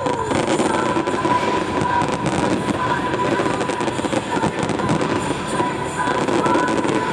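Fireworks display: many shells and crackling stars going off together, a dense, rapid crackle with no gaps.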